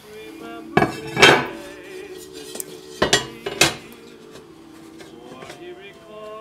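A domed, dimpled forged-steel disc clanking against a flat steel plate on a wooden workbench as it is set down and shifted to test the fit. There are about four metallic clanks, the loudest about a second in, each followed by a brief ring.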